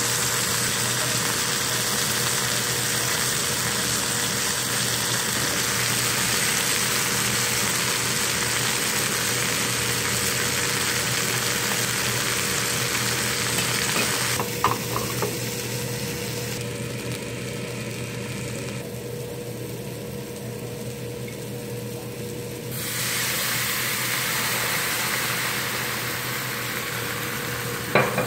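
Steak sizzling steadily in hot fat in a cast iron skillet. About halfway through it gives way to sliced mushrooms and onions frying in a skillet, stirred with a wooden spatula, with a few sharp knocks of the spatula on the pan about halfway and again near the end.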